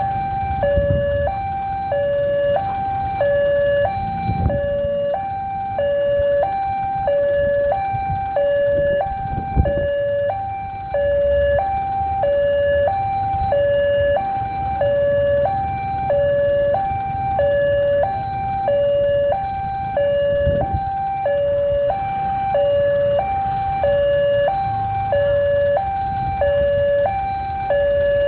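Railway level-crossing alarm siren (PJL 130, Indonesia) sounding a steady two-tone hi-lo signal, one higher and one lower tone each second, without a break: the warning that a train is approaching and the crossing is closing. A low rumble lies beneath it.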